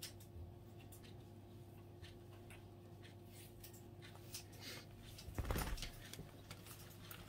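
Quiet handling sounds over a low steady room hum: faint small clicks and rustles. A louder muffled rustle and bump comes about five and a half seconds in, as the dog or the hands holding it shift.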